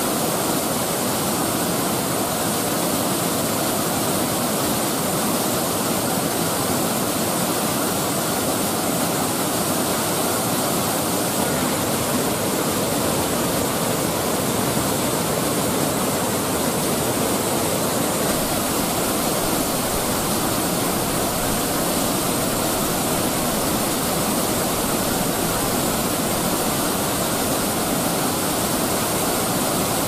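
Waterfall in full flood: a loud, steady rush of water pouring over a wide rock ledge and across flooded ground below. A deeper rumble joins the roar a little over halfway through.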